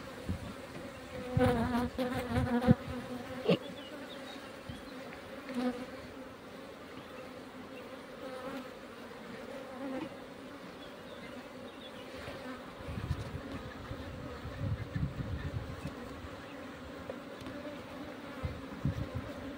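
Honeybees buzzing around an open hive, a steady hum. A few knocks and clicks come in the first few seconds, louder than the buzzing.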